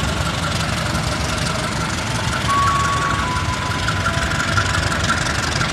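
CC 201 diesel-electric locomotive's engine running with a steady low rumble. A thin high whine comes in about halfway through and steps down in pitch.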